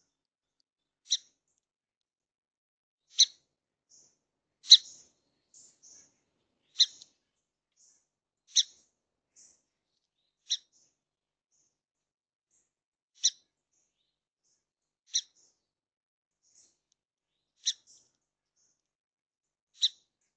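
Small songbird giving short, sharp chip calls, about one every two seconds, ten in all, with a few fainter, higher notes between them.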